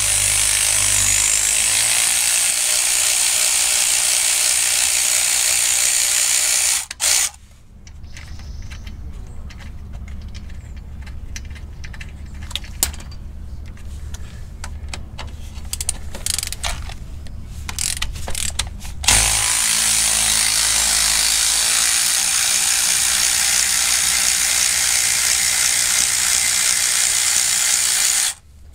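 ACDelco cordless electric ratchet running in two long spells, loosening the bolts of a Ford 8.8 rear axle backing plate. Between them is a quieter stretch of scattered light metal clicks and taps.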